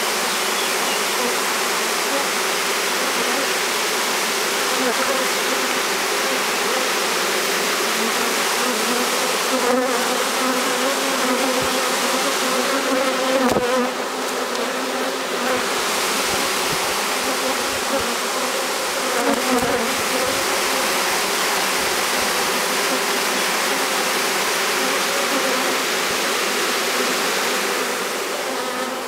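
A honeybee swarm out of its hive, clustered on a tree branch with many bees in the air: a loud, steady, dense hum of bees. A few brief knocks sound near the middle.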